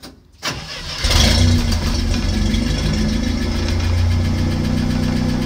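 1965 International Scout 800's engine starting and catching about a second in. It flares briefly, then runs at a steady idle.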